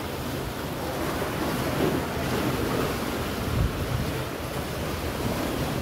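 Waves washing against a rocky shoreline, with wind buffeting the microphone and a heavier low gust about three and a half seconds in.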